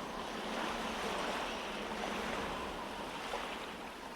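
Ocean surf washing in, a wave sound effect at the close of a song, slowly fading out, with faint lingering tones underneath.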